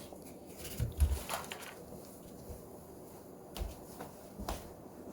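Handling noise from power tools being picked up and set down: scattered knocks and clicks, with a few soft thumps about a second in and again near the end.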